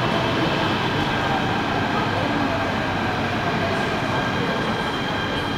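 MTR K-stock subway train, Korean-built by Hyundai Rotem, running into the station and slowing, heard from the platform through closed platform screen doors. It is a dense rolling rumble with a steady high whine, slowly getting quieter.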